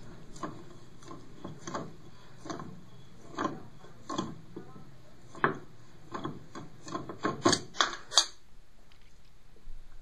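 Channellock pliers gripping and turning the bare stem of a toilet supply stop valve to shut off the water. It comes as a string of short metal scrapes and clicks as the jaws bite and regrip, louder and closer together near the end, then stopping.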